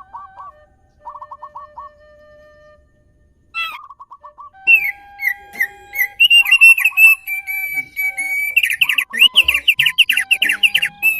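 Songbirds singing: quick series of repeated chirps and whistled notes, sparse with a short pause in the first three seconds, then dense, overlapping and louder from about four and a half seconds in.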